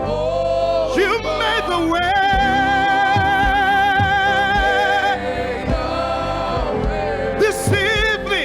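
Live gospel worship music with voices singing, holding a long wavering note through the middle, over a low beat.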